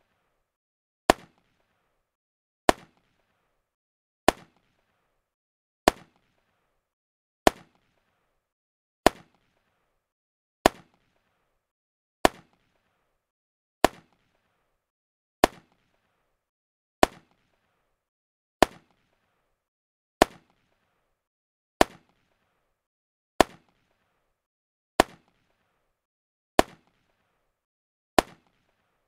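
Machine gun sound effect: a single sharp gunshot crack repeating at a steady, even pace about every 1.6 seconds, with silence in between.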